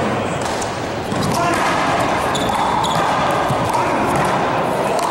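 Rubber handball smacking off the wall and the hardwood floor during a one-wall handball rally, with sharp slaps, sneakers squeaking briefly on the floor about halfway through, and voices murmuring in the hall.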